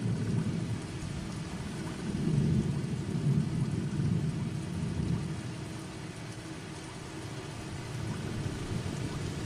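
Steady rain falling, with a low rumble of thunder that swells about two seconds in and dies away after about five seconds.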